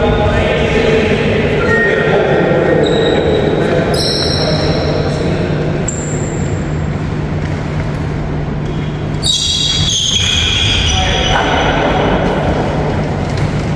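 Shoes squeaking on a wooden indoor court and players' voices echoing in a large hall, over a steady low hum.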